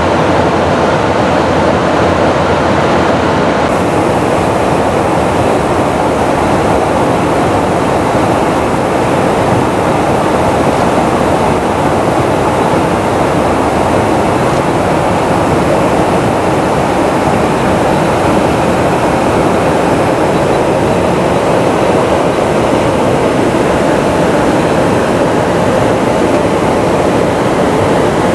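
Steady, loud rushing of airflow and jet-engine noise inside a KC-135 tanker's boom operator pod in flight, getting a little brighter about four seconds in.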